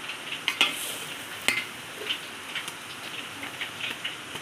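Cooking fat poured from a steel ladle over cooked pulao rice in an aluminium pot, with a light crackling sizzle. There are a few sharp clinks of the ladle against the pot, the loudest about half a second and a second and a half in.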